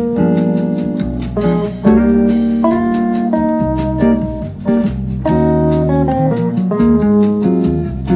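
Archtop jazz guitar picking quick single-note jazz lines over a backing of sustained bass notes and held chords that change every second or two.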